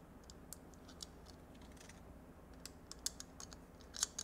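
Faint, irregular light clicks and taps of small metal parts being handled and fitted to a golf driver head, with a short cluster of sharper clicks about four seconds in.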